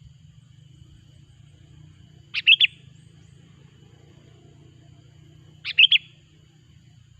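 Sooty-headed bulbul (kutilang) calls from a bird-trapping lure recording: two short, loud phrases of a few quick notes each, about three seconds apart, over a faint steady high tone.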